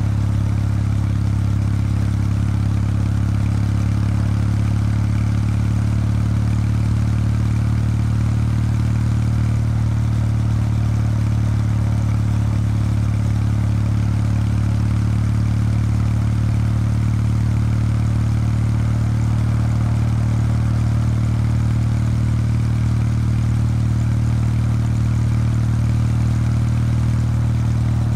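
Kawasaki W800 Street's air-cooled parallel-twin engine through its stock exhaust, running at a steady cruising speed with an even, unchanging note.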